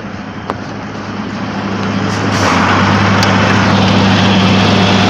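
A vehicle engine running with a steady hum that swells and grows louder about two seconds in, then holds. There is a short click about half a second in.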